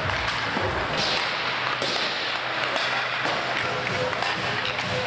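Ice hockey rink on-ice sounds: skates scraping the ice and sticks and puck clacking, a steady rush with many short sharp cracks and knocks.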